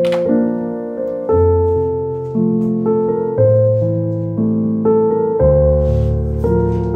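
Slow, gentle piano music, a new chord struck about once a second and left to fade.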